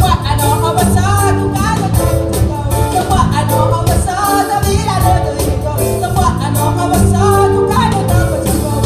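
Live band playing a song with a steady beat on keyboards, congas, drum kit and guitars, with a woman singing the lead at the microphone.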